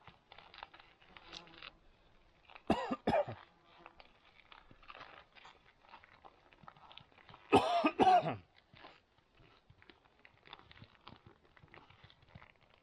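A man coughs: two short coughs about three seconds in, then a longer, louder coughing bout about halfway through. Faint scattered ticking can be heard in between.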